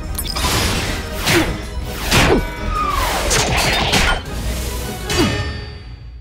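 Cartoon sound effects of an Iron Man-style armour suit assembling around a character: a run of quick whooshes and hits about a second apart, with a falling whistle about halfway through, over background music.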